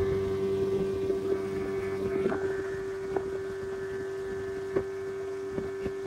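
Outboard motor driving a small passenger boat at speed, running at one steady pitch, with a few light clicks.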